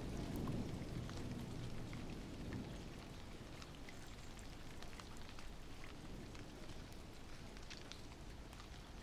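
Light rain falling, with scattered drops ticking. A low rumble dies away over the first few seconds.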